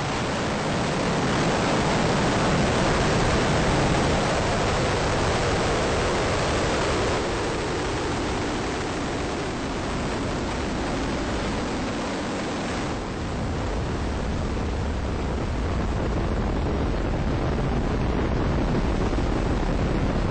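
Ares I-X's four-segment solid rocket motor firing as the rocket climbs after liftoff: a steady rushing noise with no distinct tones, its highs thinning and its low rumble growing about 13 seconds in.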